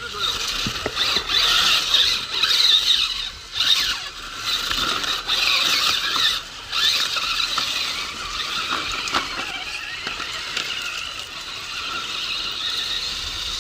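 RC crawler truck's electric motor and gearbox whining under throttle, cutting out briefly a couple of times in the first half and running more steadily after that.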